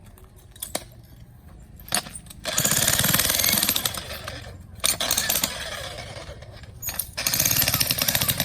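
Jackhammer breaking up rock in bursts of rapid hammering: a long run starting about two and a half seconds in, a short one around five seconds, and another near the end, with quieter pauses between.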